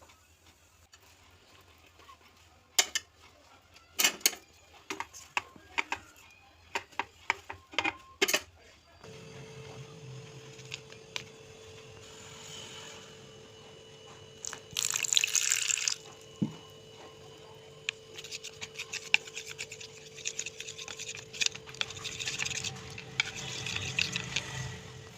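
Utensils clinking against cookware in scattered sharp clicks for the first nine seconds or so, then liquid sounds from a cooking pot, splashing and bubbling, over a faint steady hum. There is a louder rush of splashing about halfway through.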